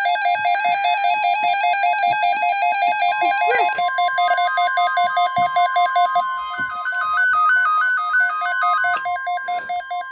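Weather alert radios sounding their alarms: fast, stepping electronic beeps with many overtones, the pattern changing about six seconds in. From about three seconds in, the steady 1050 Hz NOAA Weather Radio warning tone joins them, signalling an incoming alert.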